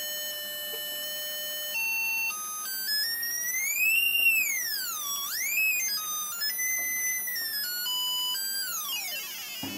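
Square-wave tone from an Arduino Uno, played through a home-made LM386 amplifier and speaker, with its pitch set by a joystick. It holds one low note for about two seconds, then steps upward in jumps. Around the middle it sweeps smoothly up to a high pitch and back down, then jumps between notes and falls in a long downward glide near the end.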